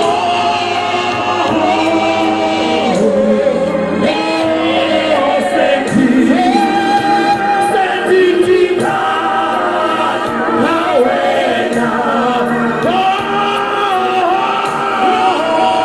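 Choir or congregation singing a gospel song together, many voices holding and moving between long sung notes.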